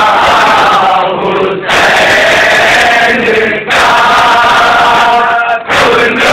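A group of men chanting a nauha, a Shia mourning lament, loudly and in unison, in sung phrases of about two seconds with short breaks between them.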